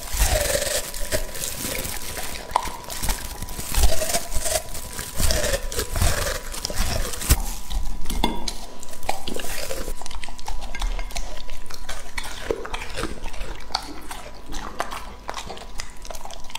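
English Labrador retriever eating at close range: wet chewing, crunching of broccoli and tongue smacks and licks against a ceramic plate, many sharp clicks and crackles in quick succession.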